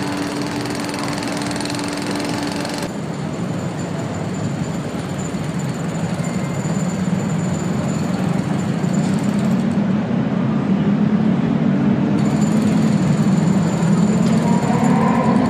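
Steady mechanical din of construction machinery, with a low engine rumble building and growing louder in the second half.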